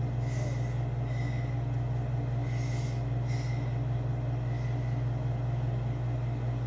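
Steady low hum of workshop machinery, with a few faint rustles of parts being handled.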